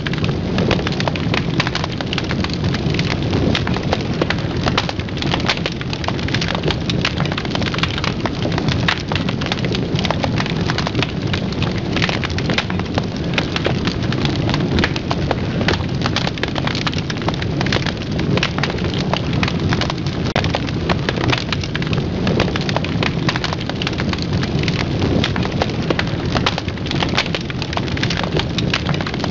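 Wood fire burning in a steel fire basket, with dense, steady crackling and popping over a low rushing noise.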